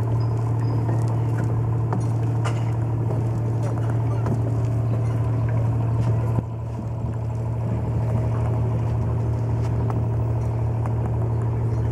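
A boat engine idling steadily: a low, even hum with a constant pitch. There is a brief dip in level a little after six seconds in.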